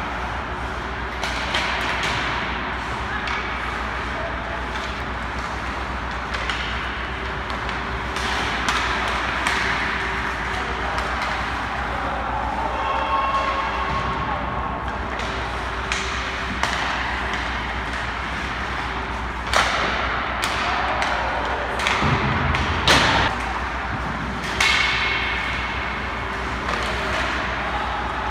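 Ice hockey drill sounds: skates scraping on the ice under steady rink noise, with sharp hits of pucks and sticks, several in the second half and the loudest about two-thirds of the way through.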